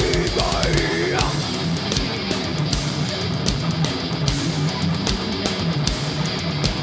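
Groove metal band playing live: heavy distorted electric guitars riffing over drums, with regular cymbal hits.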